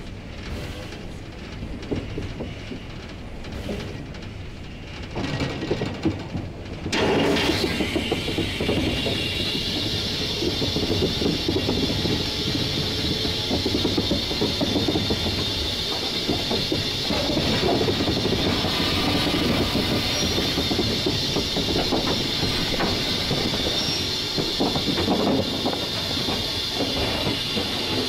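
1943 Davenport-built steam locomotive heard from its cab: a low rumble with scattered knocks, then about seven seconds in a sudden loud steady steam hiss sets in and runs on over the rumble and clatter of the moving locomotive.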